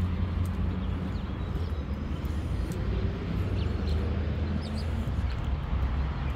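Steady low outdoor rumble with a few short, faint bird chirps.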